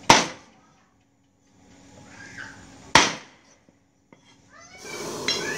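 Cleaver chopping through pieces of catfish on a round wooden chopping board: two sharp chops about three seconds apart. Near the end a steady rushing noise comes in.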